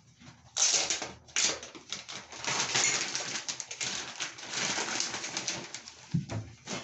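Clear plastic packaging crinkling and rustling as it is handled and a hair-weave bundle is pulled out of it, starting about half a second in.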